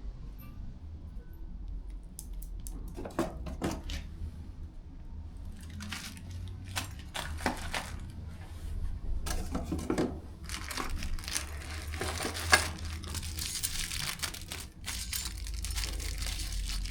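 Plastic packaging crinkling and tearing as lock parts are unwrapped by hand, with scattered small clicks. The rustling grows busier and more continuous from about ten seconds in.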